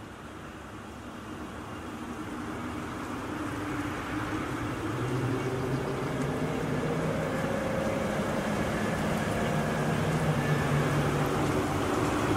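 A motor vehicle engine running with wind noise, growing steadily louder.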